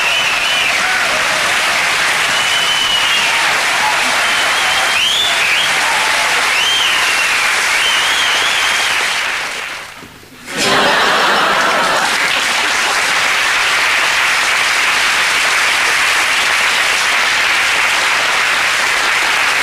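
Studio audience applauding, with cheering over the clapping for the first several seconds. The applause fades out briefly about halfway through, then starts again at full strength and carries on steadily.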